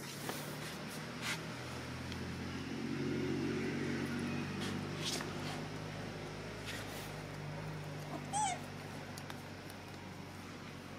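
Baby macaque crying with short high-pitched squeals, the sharpest one near the end, over a low steady hum and a few light clicks.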